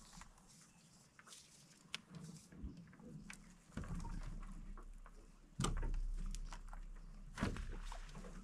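Light clicks and rustles of fishing line and branches being handled while a limb line is tied to an overhanging branch from a small boat. Three duller knocks come in, each fading slowly.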